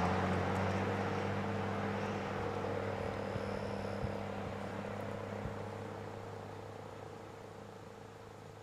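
ASC T-121 AC/DC electromechanical siren winding down after its alert cycle: its single tone sinks a little in pitch and fades steadily away.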